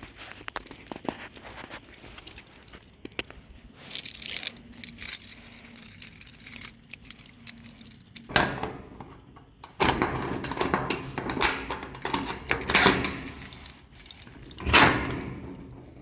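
Small hard objects clinking and rattling as they are handled, in irregular bursts that grow louder from about halfway through.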